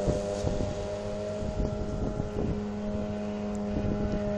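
Tractor and straw chopper running, a steady engine drone with a held whine, and wind buffeting the microphone.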